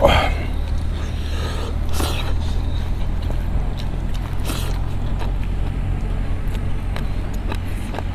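Tractor engine running with a steady low drone, with a few light clicks scattered over it.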